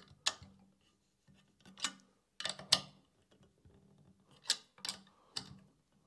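Sharp, irregular metallic clicks and knocks, about seven of them, as a WorkBee CNC Y-plate's wheels on aluminium extrusion are adjusted with a hex key: the eccentric spacers are being tightened to take the last small rock out of the plate on the rail.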